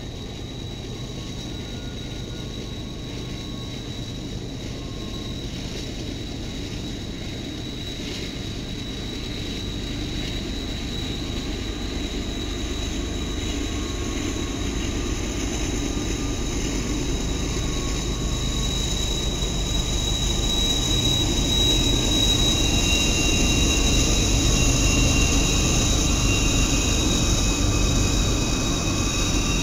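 Diesel freight locomotives hauling a container train, their engines' low drone growing steadily louder as they draw near, with a steady high-pitched whine over it.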